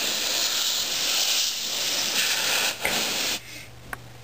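Can of compressed air spraying through its straw nozzle into a desktop computer's rear vent grille, a long steady hiss blowing out dust. It dips briefly and then cuts off about three and a half seconds in.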